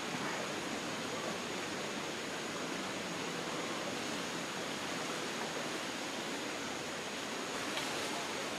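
Rainforest ambience: a steady, even hiss with a faint high steady tone above it.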